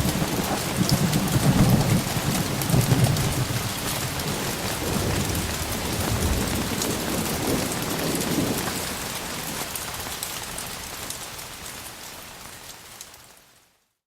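Heavy rain falling steadily during a thunderstorm, with low rolls of thunder in the first few seconds and again about six to eight seconds in. The rain fades out near the end to silence.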